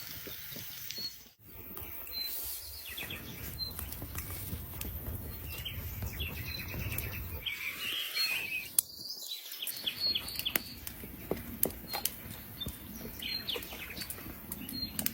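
Birds chirping over steady outdoor background noise, with scattered short clicks.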